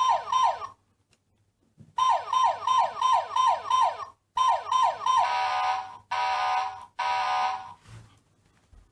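Toy fire engine's electronic siren sound effect: fast falling whoops, about three a second, that stop and start. About five seconds in, it switches to a steady electronic tone sounded in three short blasts.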